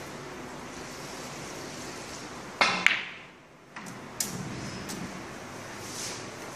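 Snooker balls clicking: two sharp clicks close together about two and a half seconds in, then three lighter knocks over the next two seconds, over a steady background hiss.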